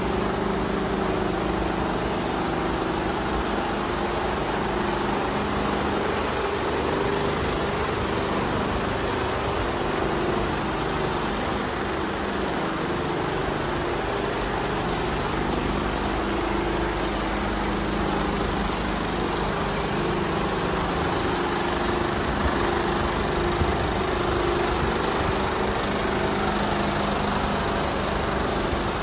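Mercedes Actros 1842 tractor unit's 420 hp Euro 6 diesel engine idling steadily.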